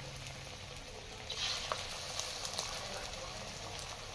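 Small onion pakoras deep-frying in hot ghee: a steady sizzle with scattered sharp crackles, growing louder about a second and a half in.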